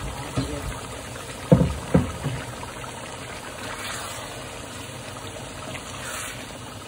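Steady rushing hiss of a pot of rice cooking on the fire, with two loud knocks about a second and a half and two seconds in, and a few lighter ones.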